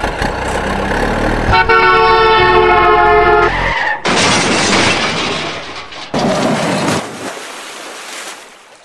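Added vehicle sound effects: an engine rumble, then a steady truck horn blast for about two seconds. Then come two bursts of rushing noise, about four and six seconds in, the second fading away, as the toy dump truck plunges into the water with a splash.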